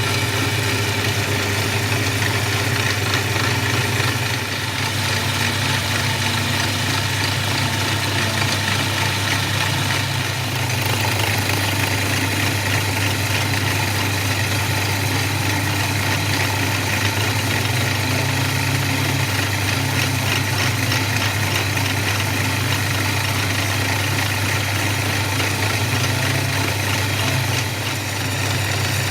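CNC milling machine running a machining pass, a steady low hum with an even hiss of spindle and cutting noise over it.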